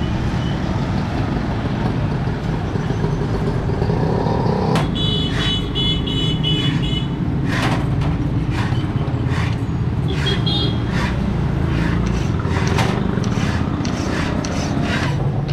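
Steady low mechanical rumble like traffic, with a rising tone over the first few seconds, then a series of sharp knocks and a brief high chirping now and then.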